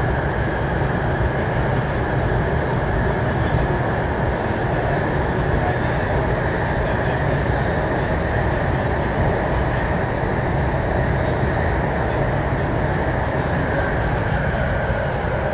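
Interior of an MTR East Rail Line R-train running between stations: a steady low rumble from wheels and running gear, with a steady high hum over it.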